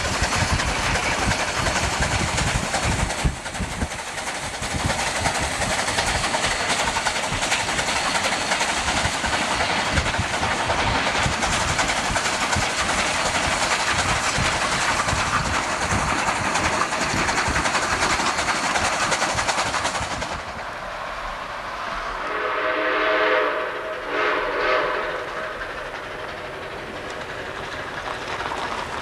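Narrow-gauge K-36 steam locomotive and its train rolling close past, a steady loud rumble and clatter of wheels on rail. About 20 s in the sound drops, and a Durango & Silverton steam locomotive's chime whistle blows a long blast followed by a shorter one.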